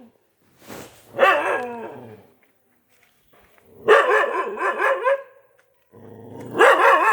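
Dog barking in three short bouts of quick, loud barks, with pauses of about a second between them.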